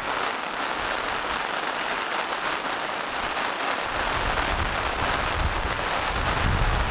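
Steady forest rain, an even hiss of drops falling. About halfway through, a low rumble comes in underneath.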